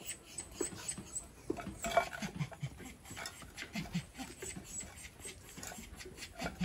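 A dog sniffing and snuffling with its nose in rubble by a wall, a run of short clicky noises with a few brief low sounds and a sharper click about two seconds in.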